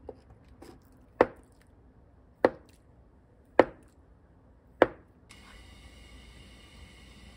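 Chef's knife cutting through a block of tofu and knocking down onto a cutting mat: four sharp knocks a little over a second apart, after a couple of lighter taps.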